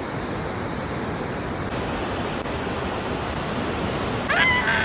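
Steady, even rushing noise, with a short rising pitched call near the end.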